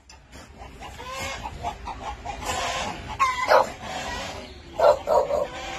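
Caged dogs whining and yelping: a string of short, high cries that bend in pitch, with the two loudest yelps about midway and near the end.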